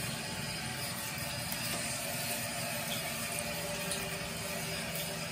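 Water running steadily from a handheld shower head, its spray rinsing a wet cat's fur.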